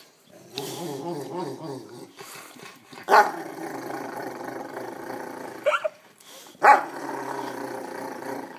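Rottweiler–Newfoundland mix dog growling from happy excitement, not aggression. A short growl about a second in, then two long drawn-out growls that each start with a sharp bark-like yelp, about three and seven seconds in.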